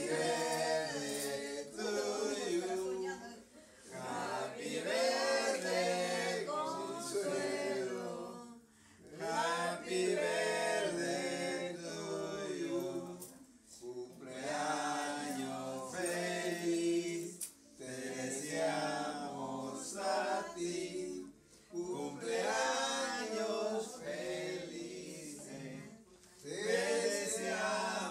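A group of people singing a birthday song together without accompaniment, phrase after phrase with short breaks between lines.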